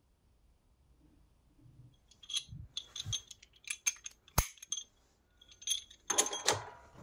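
Knurled metal feed-lever handles of a drill press clinking and clicking against each other and against the feed hub as they are handled and fitted. It is a run of light metallic clinks, with one sharp knock near the middle and a thicker cluster near the end.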